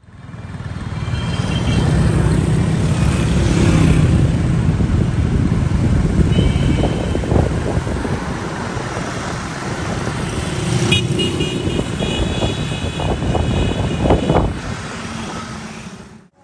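Road and traffic noise from a moving vehicle: a steady engine and tyre rumble, with a few short horn toots from passing traffic and a few low thumps near the end.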